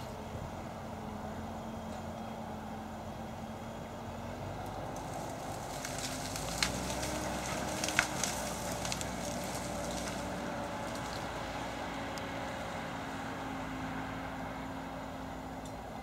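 Fendt Vario 820 tractor's engine running under load while pulling a five-furrow plough through wet ground. It grows a little louder in the middle, with crackling and two sharp clicks about six and a half and eight seconds in.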